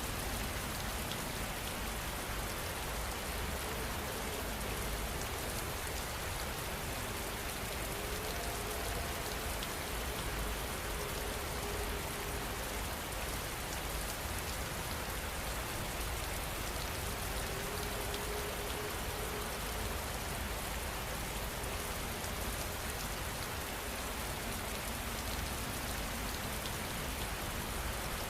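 Steady rain falling and pattering on surfaces, an even, unbroken hiss.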